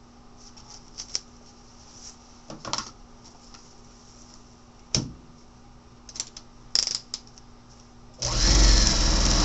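A few light clicks and rustles as the paper-backed fabric block is handled and set under the presser foot, then, about eight seconds in, an electric sewing machine starts stitching through the paper foundation and fabric, running steadily and much louder.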